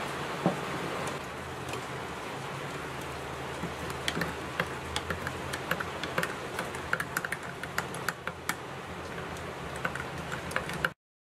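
Metal spoon clinking against a glass measuring jug while stirring milk, many quick irregular clinks starting a few seconds in, over the steady hiss of rain. A single knock sounds about half a second in, and everything cuts off just before the end.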